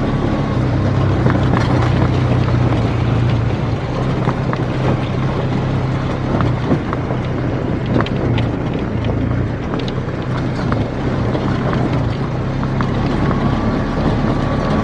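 Polaris RZR side-by-side's engine running at a nearly steady pitch under way, with scattered short knocks through it.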